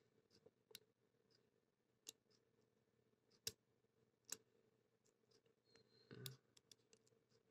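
Near silence broken by a few faint, sharp clicks spaced a second or more apart, with a small cluster near the end: a hook pick working the pins of a CITY ISEO Aditus 60 mm pin-tumbler padlock during single-pin picking.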